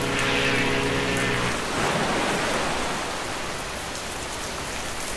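Heavy rain falling steadily, with a ship's horn sounding one low, steady blast that stops about one and a half seconds in. A swell of rushing noise follows around two seconds in.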